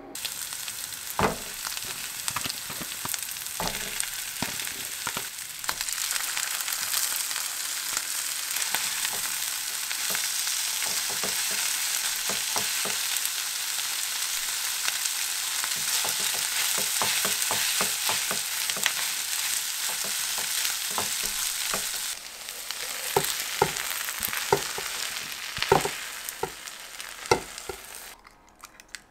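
Rice and vegetables sizzling in a hot nonstick frying pan while being stirred with a silicone spatula, which clicks and taps against the pan. The sizzle eases about 22 seconds in, and the spatula taps and scrapes stand out more until the sound stops just before the end.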